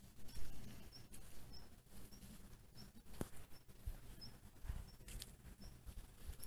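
A bird repeating a short, high call about twice a second, over scuffing footsteps on loose ploughed soil with a few soft thumps.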